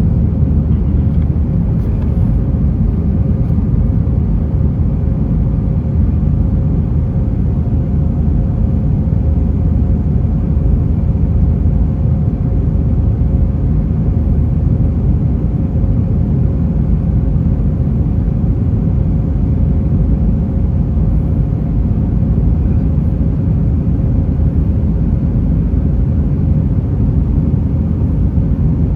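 Steady, loud low rumble of an airliner's engines and airflow heard from inside the cabin, with a faint steady hum above it.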